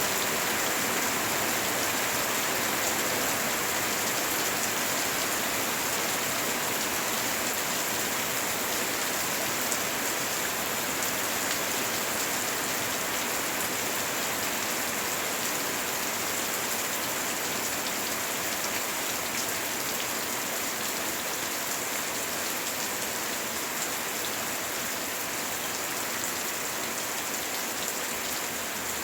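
Heavy rain falling steadily, an even hiss with scattered drop ticks and no thunder.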